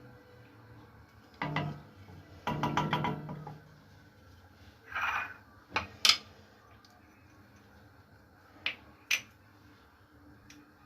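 Cooking utensils and pots knocking and scraping: a short clatter, then a longer one about two and a half seconds in, a brief swish, and a few sharp clicks of utensils on cookware.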